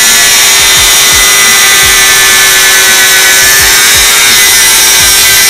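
Bosch GWS 060 4-inch angle grinder cutting through 3 mm steel flat bar with a thin cut-off wheel: a steady high motor whine over a loud grinding hiss. The pitch holds level while the wheel is pressed into the cut, as the motor keeps its speed under load.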